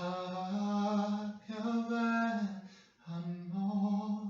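A man chanting unaccompanied in slow, drawn-out notes: three long held phrases, each about a second long, with a short break between them.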